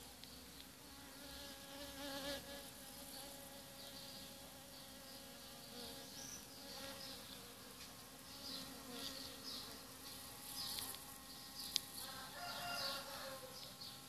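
Small bees buzzing in flight: a steady droning hum that swells now and then, with scattered faint high chirps and one sharp click near the end.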